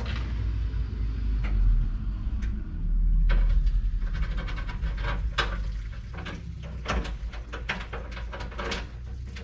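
A removed truck front fender being carried and set down, giving a run of knocks and clatters, several a second, from about three seconds in. Under it, wind buffets the microphone with a low rumble that is loudest in the first half.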